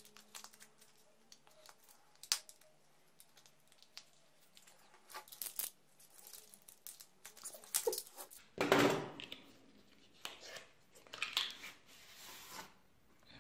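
A utility knife slitting a white cardboard box, followed by cardboard being torn and pulled apart with scraping and rustling. The loudest tear comes a little past halfway. Light handling clicks come before it.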